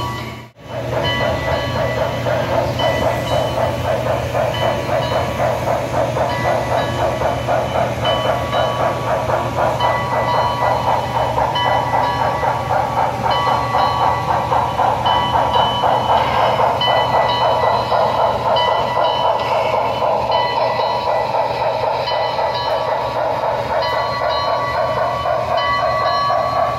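Steam exhaust chuffs from the sound system of an HO-scale Broadway Limited Southern 610 model steam locomotive, in a quick even rhythm over a steady low hum.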